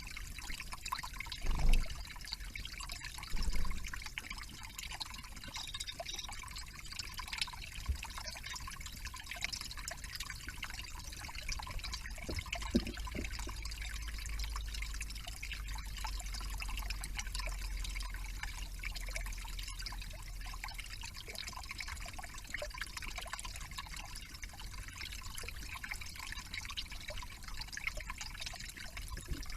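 Steady trickling and dripping of water, with many fine drips throughout. Two low thumps stand out near the start, about two seconds apart.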